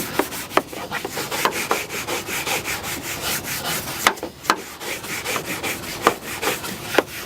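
Nylon-bristled fingernail brush scrubbing polish into a textured plastic bumper, a scratchy back-and-forth at about three strokes a second, with a few sharper flicks of the bristles.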